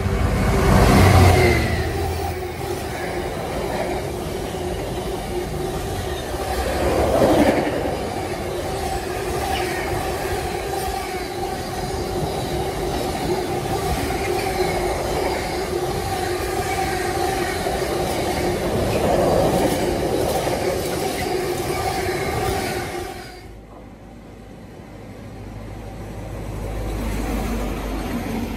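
A Freightliner Class 66 diesel locomotive, with its EMD two-stroke V12, passes at speed, loudest about a second in. It is followed by a long rake of container wagons rumbling and clattering over the rails, with a steady tone over the wheel noise. The sound cuts off suddenly with a little over twenty seconds gone, and a lower diesel rumble from a CrossCountry HST power car then swells near the end.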